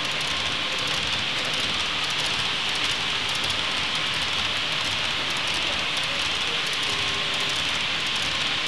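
Model trains running on a layout: a steady hiss with a low rumble underneath, and faint voices in the background.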